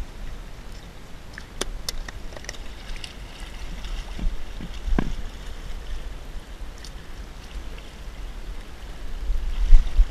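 Wind rumbling on the microphone over water washing among rocks, with a few sharp clicks and knocks from handling the pole and line on the rocks. A strong gust near the end is the loudest moment.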